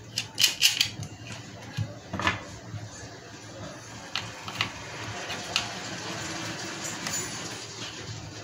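Small metallic clicks and clinks of a spanner and cable lug as the battery cable is fastened onto the inverter board's battery terminal. They are scattered: several in the first couple of seconds and a few more later, over a faint steady hum.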